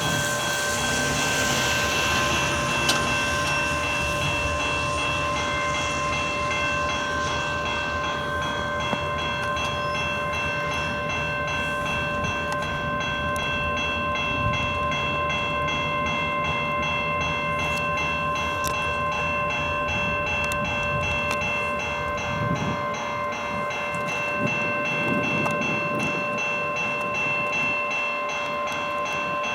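Level-crossing warning bell ringing steadily and without a break while a CN train rolls through the crossing, its wheels rumbling and clicking on the rails. The locomotive sounds no horn.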